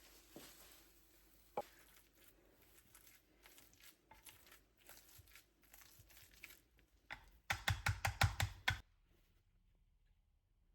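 Handling noises: small scattered clicks and rustles, then a loud burst of rapid crackling rustles lasting about a second, starting about seven and a half seconds in.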